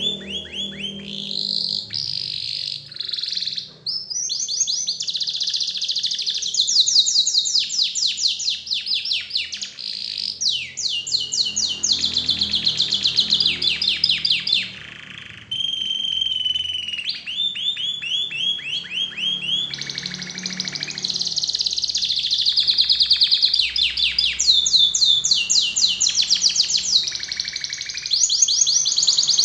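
Domestic canary singing a long, continuous song of rapid trills and rolling phrases, with a short pause about halfway through.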